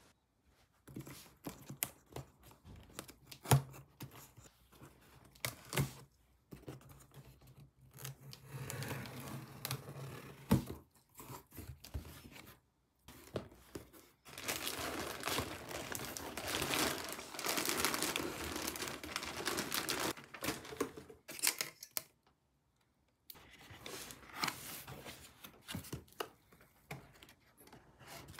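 A cardboard parcel box being opened by hand: sharp knocks and taps of handling, then long ripping stretches as packing tape is torn off and the cardboard flaps are pulled open, with plastic wrapping crinkling near the end.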